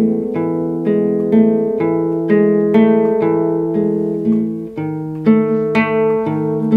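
Classical guitar played fingerstyle, an instrumental passage of plucked, ringing notes in a steady pattern of about two a second, with no singing.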